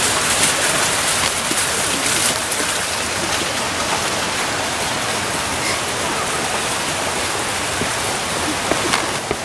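Steady rush and splash of fountain water.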